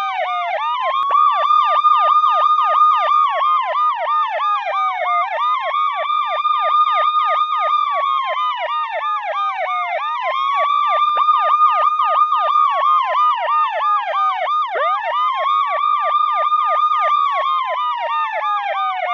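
Police siren wailing: the tone rises quickly, holds, then slides slowly down, cycling about every four to five seconds, with a rapid warble of about three to four sweeps a second layered over it.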